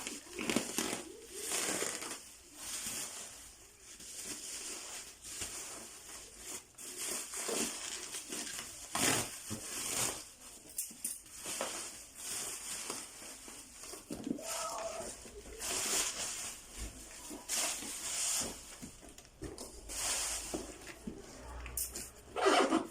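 Packaging being handled during unboxing: irregular rustling and crinkling of plastic wrap and cardboard, with a few louder knocks, the loudest near the end.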